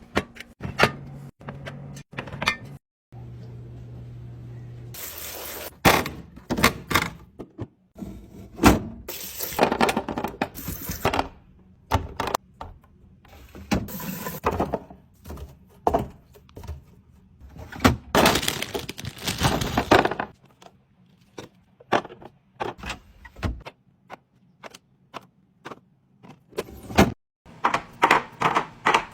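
Food containers and packaging being handled and set down while a fridge is restocked. A run of sharp taps, clinks and knocks, with a few longer rustling stretches, broken into short cuts.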